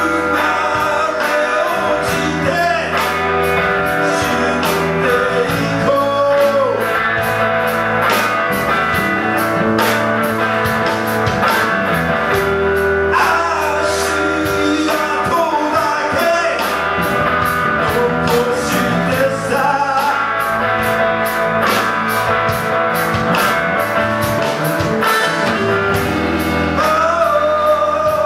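Live rock band playing: a male vocalist sings over electric guitars and drums keeping a steady beat.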